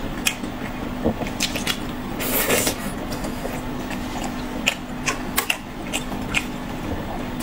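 Close-up eating sounds: biting and chewing a crab stick off a skewer, with scattered short mouth clicks and a brief noisy burst about two seconds in, over a steady low hum.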